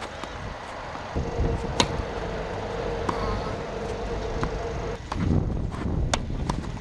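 Tennis rally: sharp pops of the ball struck by rackets and bouncing, the loudest about two seconds in and about six seconds in. A steady motor hum, like a passing vehicle, runs under it from about a second in until about five seconds.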